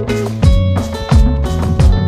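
Background music with a steady beat: a low drum hit about every 0.7 seconds under held notes.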